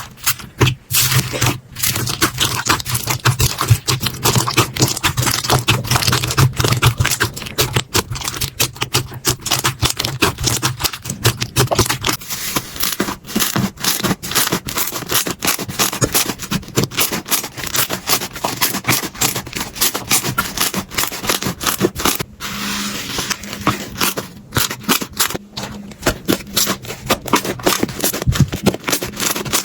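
Slime being squeezed, poked and stretched by hand: a dense, unbroken run of small clicks, pops and crackles.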